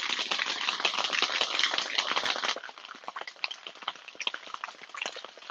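Ice rattling inside a cocktail shaker as the drink is shaken hard, a dense rattle for about two and a half seconds, then lighter scattered clinks.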